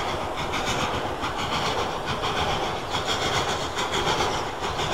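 Steam-hauled freight train climbing a gradient behind an ex-LNER V2 class 2-6-2 locomotive, No. 60827: a steady rumble with a quick, even rhythm running through it.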